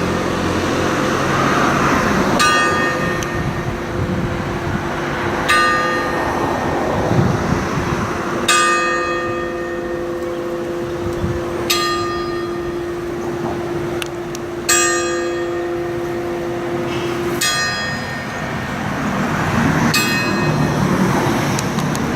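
Church bell struck by hand with a tool, since its ringing mechanism is seized: a clang about every three seconds, seven in all, each leaving a ringing tone that hangs until the next strike.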